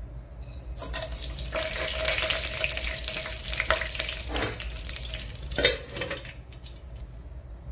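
Whole spices (black cumin, bay leaves, cinnamon, cloves, cardamom) sizzling as they drop into hot ghee and oil in an aluminium pot. The sizzle dies down after about six seconds. About five and a half seconds in comes a single metallic clank as the aluminium lid is set on the pot.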